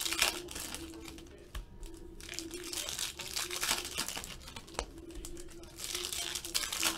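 Foil wrappers of football trading-card packs crinkling and tearing as the packs are ripped open, in irregular clusters of crackle with the cards handled between.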